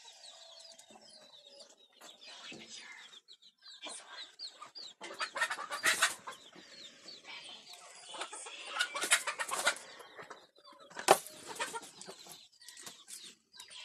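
Chickens clucking and chirping, with several loud bursts about five, nine and eleven seconds in.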